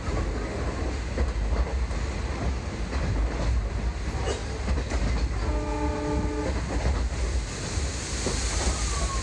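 Diesel-hauled passenger train running with a steady low rumble and scattered clicks from the wheels on the rails. About five and a half seconds in, the locomotive's horn sounds once for about a second.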